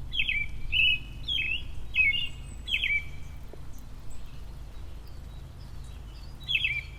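A songbird singing short, repeated high notes in quick runs. It pauses for a few seconds midway and starts again near the end.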